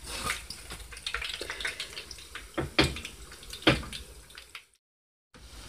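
Breaded chicken cutlets deep-frying in hot oil: a steady sizzle full of small pops and crackles, with a few louder clicks around the middle. The sound cuts out for about half a second near the end.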